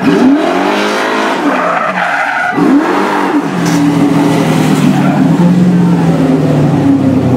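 Drill-team racing fire engine launching hard, its engine revving up twice through the gears, then held at a steady high rev about halfway through.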